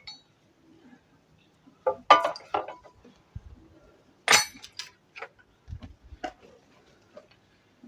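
Broken brick rubble clattering and clinking: two loud bursts of hard pieces knocking together, about two and four seconds in, then scattered single knocks.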